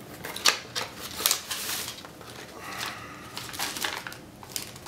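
Cardboard shipping box being opened by hand: a series of sharp crinkles and taps from the box flaps and paper, with rustling as a paper packing slip is pulled out.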